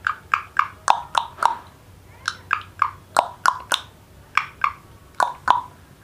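Indian ringneck parakeet making a series of short, sharp clicks and pops. They come in quick runs of two or three, about a quarter second apart, with brief pauses between runs.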